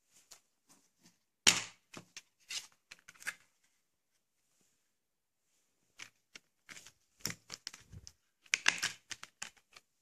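Plastic Blu-ray case being handled and opened: a sharp snap about a second and a half in, then scattered clicks and rattles. After a pause, another run of clicks as the disc is unclipped from the case's centre hub, loudest near the end.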